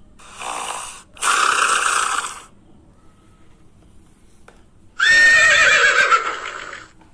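Horse neighing, three times: a short call, a louder one, then the loudest, a long whinny with a high, quavering pitch that falls away.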